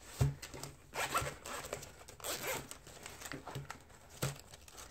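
Zipper of a zip-around budget binder being unzipped in several short pulls.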